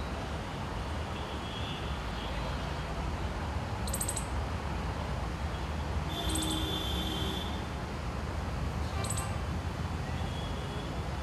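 Five-striped northern palm squirrel squeaking: three short bursts of rapid, high-pitched chirps, about two to three seconds apart, over a steady low rumble.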